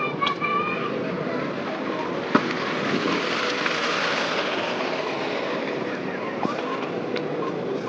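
Outdoor crowd murmur with indistinct chatter and one sharp pop about two and a half seconds in.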